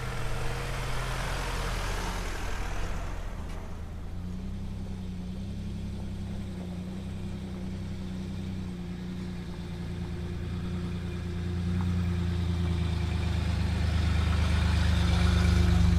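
Toyota LandCruiser 200 Series V8 turbo-diesel engine running at low speed on a rutted dirt track. A rushing hiss fades out in the first three seconds. The engine then grows steadily louder over the last few seconds as it pulls harder.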